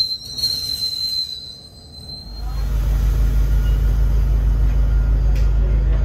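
MBTA Commuter Rail train's wheels squealing as it brakes to a stop at the platform, the squeal fading out about a second and a half in. Just over two seconds in, a loud steady low rumble starts and holds.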